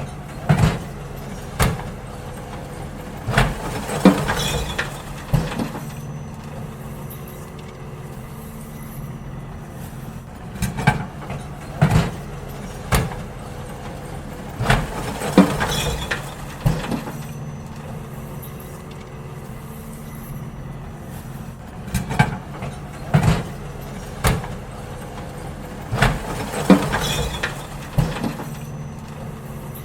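Garbage truck engine running steadily while wheelie bins are emptied. Groups of bangs and clatter from the bins being tipped come back about every eleven seconds, with quieter engine stretches in between.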